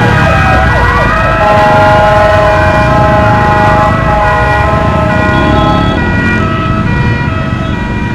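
Several fire-brigade ambulance sirens sounding at once in stopped traffic. One wails down and back up in pitch near the start, over many overlapping steady tones and a low traffic rumble, and the tones thin out somewhat toward the end.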